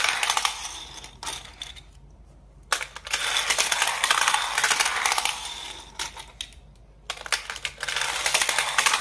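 Small plastic toy cars rolling down a zigzag plastic ramp track, a rapid clicking rattle of wheels on plastic. It comes in runs of a few seconds each, with short pauses about two seconds in and again about six and a half seconds in.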